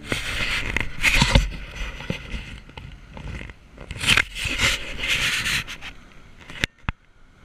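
Rustling, scraping handling noise on a helmet-mounted camera's microphone, in bursts in the first second and a half and again about four seconds in, then two sharp clicks near the end.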